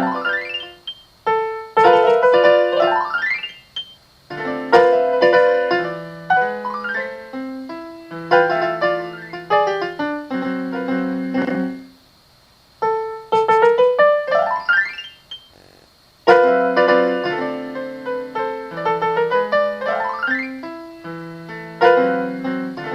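Solo piano playing sustained chords and melody, with quick rising arpeggio runs, broken by a few brief pauses.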